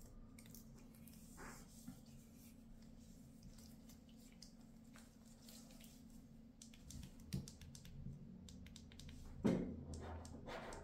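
Faint handling sounds: light clicks and rubbing over a low hum, with a knock about seven seconds in and a louder thump near the end.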